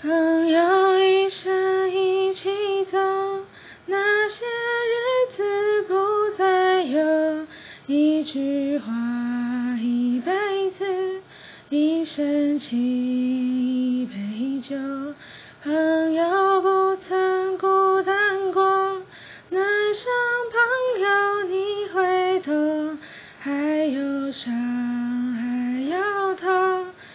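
A recorded song with a woman singing the melody over light accompaniment.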